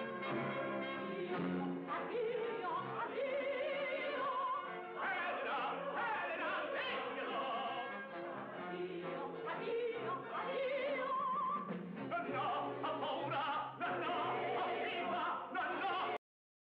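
Operatic singing over an orchestra, the voice wavering with vibrato. The sound cuts off suddenly near the end.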